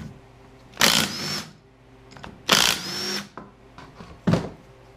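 Cordless impact wrench run in two bursts of under a second each, its motor whine rising at the start of each, loosening the connecting-rod cap fasteners on a Subaru EJ25D crankshaft. A short knock follows near the end.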